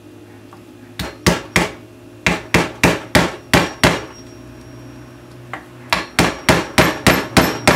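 Claw hammer tapping a tiny nail, held in needle-nose pliers, through a metal hiking-staff medallion into hard wood. Two runs of quick light taps, about three a second, with a pause of about a second and a half between them.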